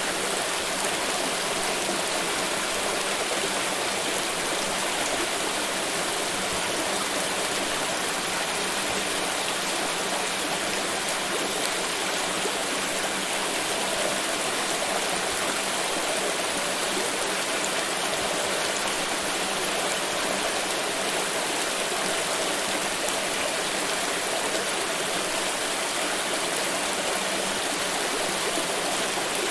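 Flowing water, a steady, even rush of a stream over rocks.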